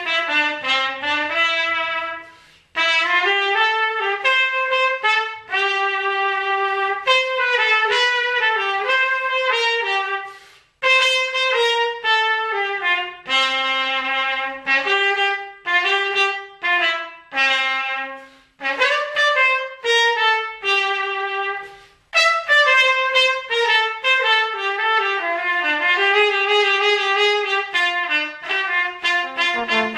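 Background music: a solo brass melody, played in phrases with short breaks about 3, 11 and 22 seconds in.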